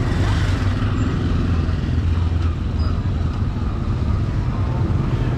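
Busy street traffic: motorbike and tuk-tuk engines running close by, with a steady low rumble.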